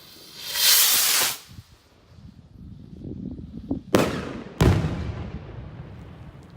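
Consumer fireworks going off: a loud rushing burst of about a second near the start, then two sharp bangs about two-thirds of a second apart, about four seconds in, each trailing off in a rumbling echo.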